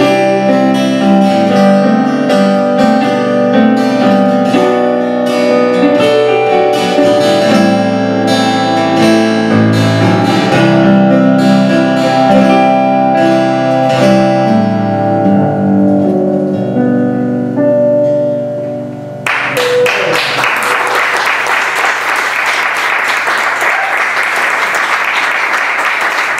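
Live guitar music closing out a song: a few notes ring on and die away, then the audience breaks into applause about two-thirds of the way through.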